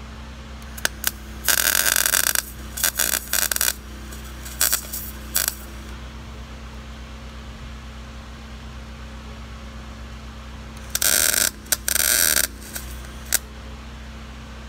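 MIG welder (Lincoln 140) laying short welds on steel: crackling arc bursts of up to about a second each, in two groups, with gaps between. A steady low hum runs underneath.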